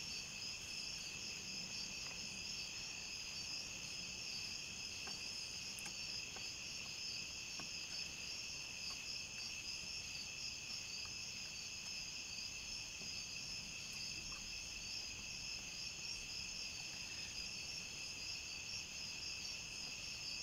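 Steady chorus of insects chirring high and shrill without a break, with a few faint light taps.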